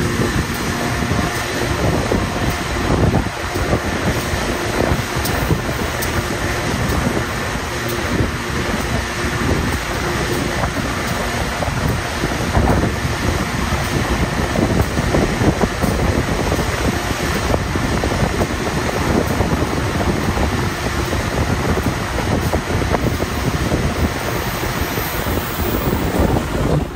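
Passenger train running along the track, heard from an open carriage window, with wind rushing over the microphone in a steady noise.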